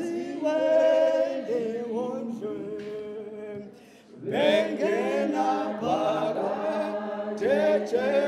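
Voices singing a hymn unaccompanied, in the manner of a church congregation or choir, with long held notes. There is a short break between lines about four seconds in, and then the singing resumes.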